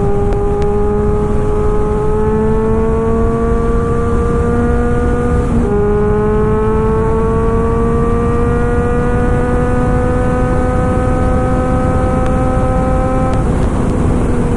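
Kawasaki Ninja 1000's inline-four engine through an SC-Project full-system exhaust, accelerating hard with its pitch climbing steadily. About five and a half seconds in, a quick upshift drops the pitch, then it climbs again and eases off near the end. Heavy rumble of wind noise runs under it at speed.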